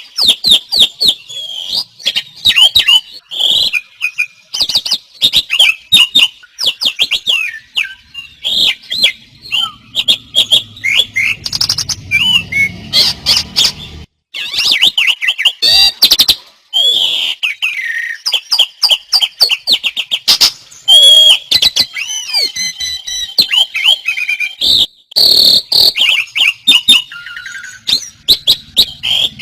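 Several caged songbirds singing at full volume at the same time, their rapid chirps, trills and sharp clicks overlapping without pause. There are brief breaks about halfway through.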